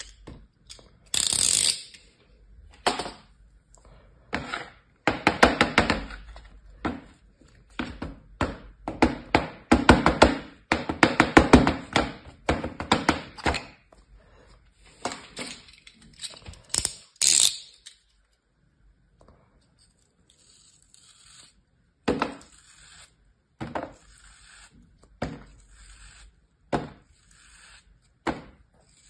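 Kinetic sand being sliced with a small knife and crumbled by hand: irregular runs of soft crunching and crackling, densest in the first half, with a pause of a few seconds past the middle.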